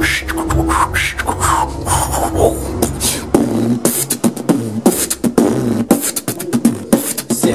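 A person beatboxing: a quick, even run of mouth-made kick and snare clicks, with a low hum under the first few seconds, laying down a beat for rapping.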